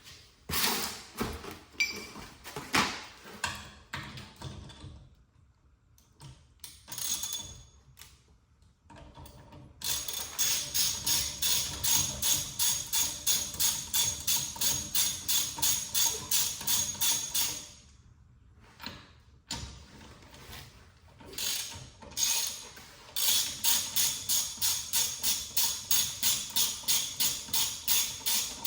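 Hand ratchet clicking in long, even runs of about three clicks a second, as when wheel bolts are run in or out. There are two spells with a pause between, and a few metal knocks and clanks before the first.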